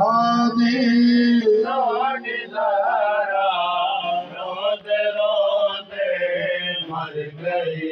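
Men's voices chanting a noha, a Shia mourning lament, unaccompanied and amplified through handheld microphones, in long melodic phrases that rise and fall with short breaks between them.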